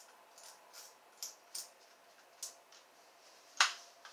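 Light clicks and rubbing as a Zebco spincast reel is handled and wiped down with a rag, with one sharper, louder click about three and a half seconds in.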